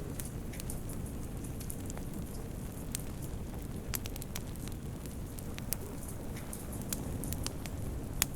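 Wood fire burning in a fireplace: a steady low rumble with scattered sharp crackles and pops, the loudest pop near the end.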